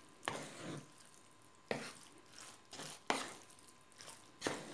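Wooden spoon mixing cooked noodles with yogurt in a wooden salad bowl: soft, wet scraping, with four sharper strokes about a second and a half apart.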